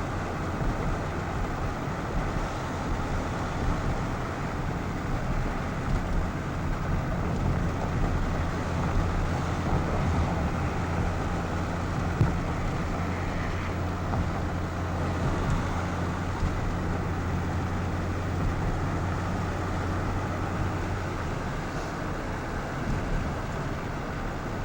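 A car driving at a steady speed, engine and road noise making a steady low hum; the deepest part of the hum eases off near the end.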